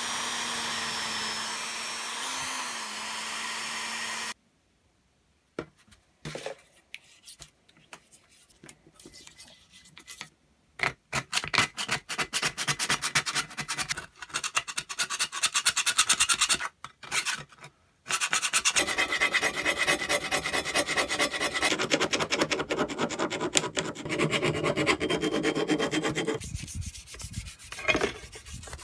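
A power drill running steadily for about four seconds, then stopping suddenly. After a pause, a steel paint scraper scrapes softened paint and rust off the cast iron body of a jointer plane in quick, repeated strokes that become dense about two-thirds of the way in. Near the end comes scrubbing of the plane body in a tub of water.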